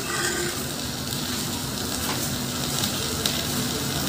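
Tomato sauce sizzling steadily in a hot pan.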